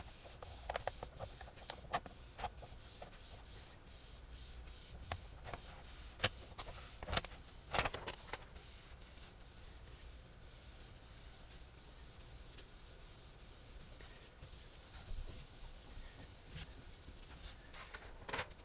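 A folded paper towel rubbed by hand over the magnetic sheet on a 3D-printer build plate: faint, irregular wiping strokes, busiest in the first half and again near the end.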